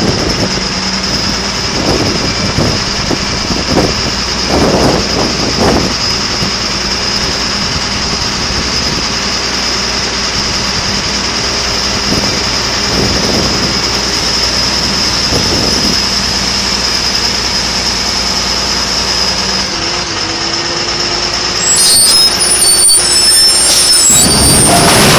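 Heavy diesel machinery running steadily with a constant high whine, a few knocks in the first several seconds, then growing louder with high-pitched squeals near the end.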